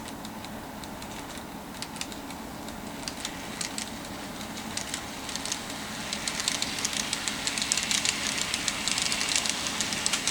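N-gauge model train running on its track: a steady motor hum under a patter of sharp clicks from the wheels on the rails. The clicks get denser and louder from about halfway through.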